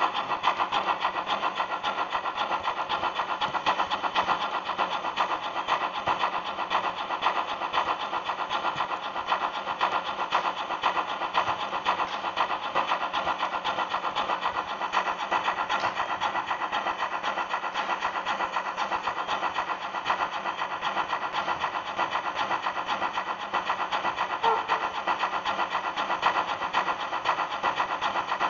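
Model locomotive of a class 80 tank engine running along the track, heard from right behind it: a steady whir of its small electric motor and gearing with a fast, dense rattle of wheels over the rails.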